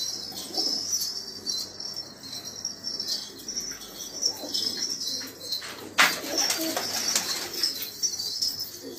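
Domestic pigeons cooing, with a sudden burst of wing flapping about six seconds in.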